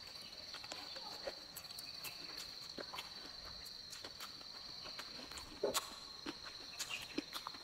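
Close-up chewing of soft, sticky Sichuan sweet potato skin: small wet mouth clicks and smacks, a short cluster of them about five and a half seconds in. A steady high insect trill runs behind.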